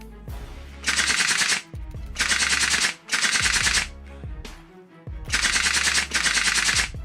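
Five short bursts of rapid automatic fire, each lasting under a second, with a pause between the second and third pair, over background music.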